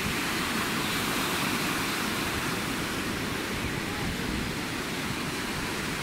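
Steady rush of sea surf washing on a sandy beach.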